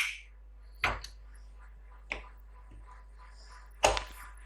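A few short clicks and knocks, three in all, the last one loudest near the end, over a faint steady hum.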